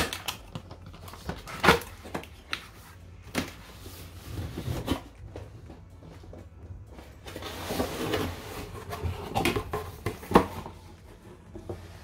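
A cardboard box being opened by hand: a tape seal is peeled and the lid is worked off. Several sharp knocks and taps of cardboard come at irregular moments, with scraping rustles in between.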